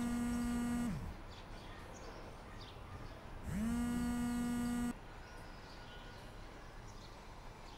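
Mobile phone vibrating for an incoming call: two buzzes of about a second and a half each, about three and a half seconds apart, the motor spinning up at the start of each and winding down at the end.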